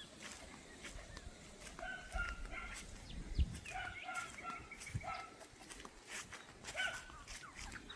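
Domestic fowl calling in runs of short, repeated notes, about two seconds in, again around four seconds, and once more near seven seconds. A brief low rumble on the microphone about three and a half seconds in is the loudest moment.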